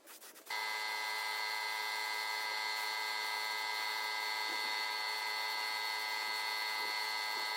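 A handheld electric power tool starts about half a second in and runs at a steady speed, a constant high whine with no change in pitch.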